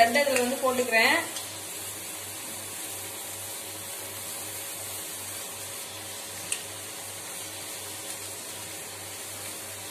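Pieces of white bread frying in hot oil in a steel kadai, a steady soft sizzle, with a single light tap about six and a half seconds in.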